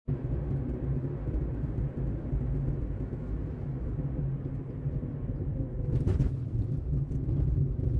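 Steady low rumble of a car's engine and road noise heard inside the cabin, with a brief click about six seconds in.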